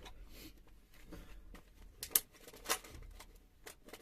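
Handling noise of small objects close to the microphone: a run of light clicks and rustles, with two sharper clicks a little after two seconds and shortly after.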